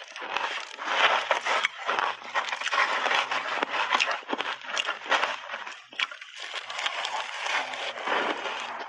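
Ice chunks coated in milk powder and matcha powder being chewed close to a clip-on microphone: dense, continuous crunching and cracking, with a brief lull about six seconds in.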